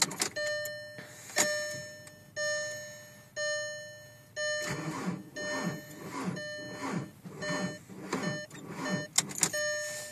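A car's warning chime dings about once a second; about halfway through, the starter cranks a cold TDI diesel engine in a steady rhythm without it catching, a no-start at 5°F.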